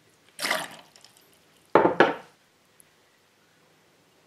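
Lemon juice poured from a steel jigger over ice in a stainless shaker tin: a short splash, then two sharp knocks about a quarter-second apart.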